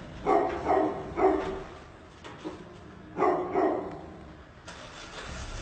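A dog barking: three quick barks, then two more about three seconds in.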